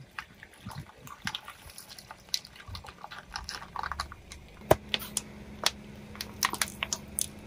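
Small hard objects clicking and cracking in an irregular run of sharp snaps. A steady low hum comes in about halfway through.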